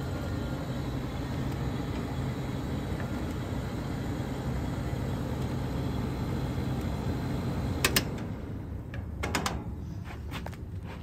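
Vintage Sharp room air conditioner running, its Matsushita rotary compressor humming steadily under the rush of the fan. About eight seconds in there is a sharp click and the running sound dies down, followed by a few light knocks.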